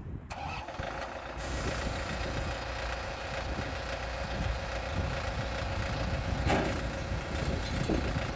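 John Deere 990 compact tractor's diesel engine running steadily while it drives a 6 ft King Kutter II rotary tiller through the dirt. The sound grows fuller about a second and a half in, then holds steady.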